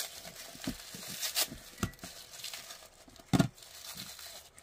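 Green tissue paper crinkling and tearing as it is pulled apart and unwrapped by hand, with a louder dull thump about three and a half seconds in.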